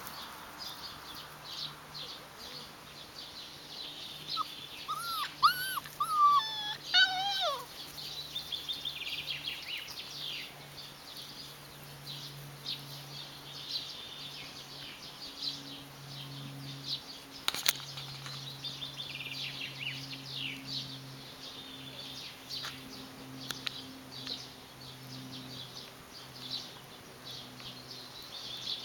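Rhodesian Ridgeback puppies giving a short run of high, falling squeals and whimpers about five to seven seconds in, over birds chirping in the background throughout.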